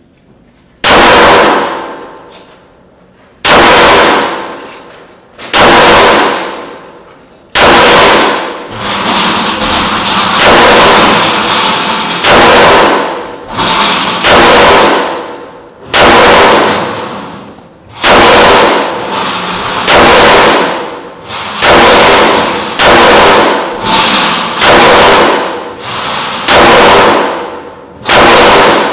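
Shadow Systems MR918 9mm pistol fired at a slow, steady pace, about fifteen very loud shots roughly one every one and a half to two seconds, each followed by a long echo off the walls of an indoor range.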